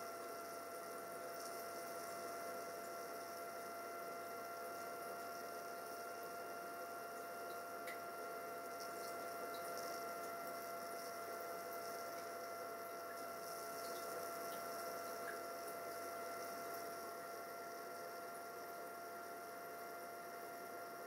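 Steady electrical hum and hiss with a faint constant whine, unchanging throughout.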